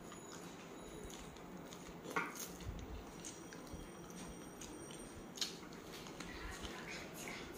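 Faint eating sounds over a crab curry dinner: quiet chewing, with two sharp clicks about two and five seconds in.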